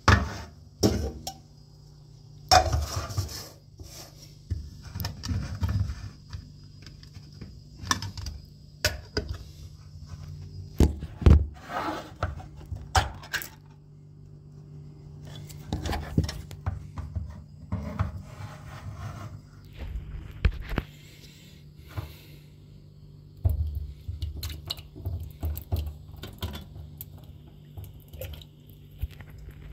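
Metal tin can worked open one-handed by its ring-pull lid and handled beside a pot: irregular clicks, clanks and short scrapes of metal, over a steady low hum.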